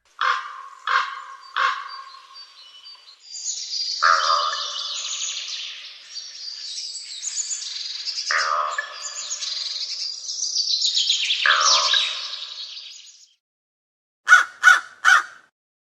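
Crows calling: three short caws, then about ten seconds of a dense flock chorus, high chirping and chattering with louder harsh calls mixed in. Three quick caws come near the end.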